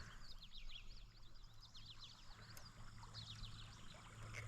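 Faint high chirping calls from small animals: runs of quick downward-sweeping chirps, over a faint low hum.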